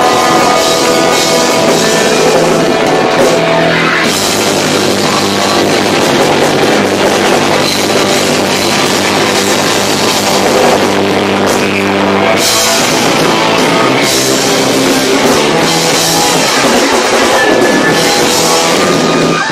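Live rock band playing loud, with electric guitars and a drum kit. It is recorded through an overloaded camcorder microphone, so the sound is heavily distorted.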